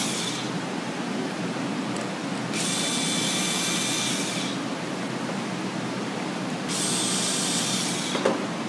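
Cordless screw gun backing out the clutch pressure-plate spring bolts in short steps: a steady high whine in runs of about two seconds, one ending just after the start and two more after it, so the spring pressure comes off evenly. A sharp click just after the last run.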